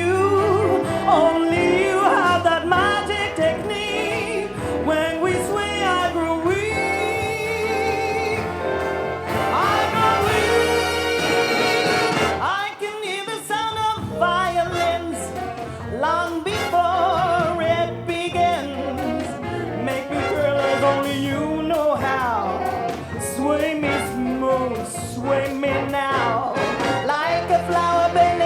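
Big band playing live: brass section over bass and drums in an instrumental passage, with a bright, full passage of held, wavering brass notes near the middle.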